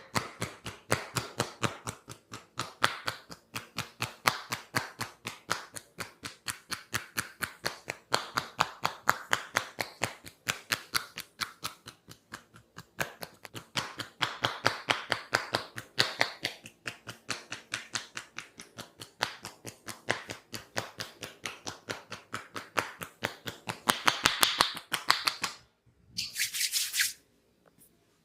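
Tok Sen massage: a wooden mallet tapping a wooden stick against the body in a fast, even rhythm of about five strikes a second. The tapping stops shortly before the end and is followed by a brief rubbing sound.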